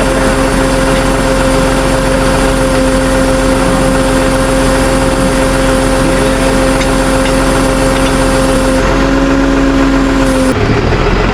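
Vehicle engine running steadily, with a constant hum held at one pitch under a dense noise. The hum cuts off abruptly near the end.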